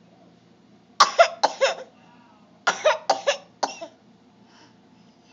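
A person making funny cough-like vocal noises: two quick runs of short, pitched bursts, one about a second in and one about three seconds in.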